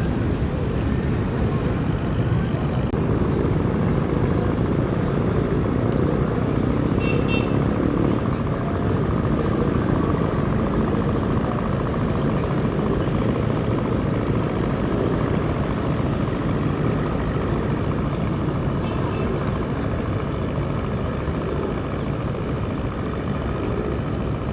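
Steady low engine rumble of a motor vehicle, with a brief high-pitched pulsing chirp about seven seconds in.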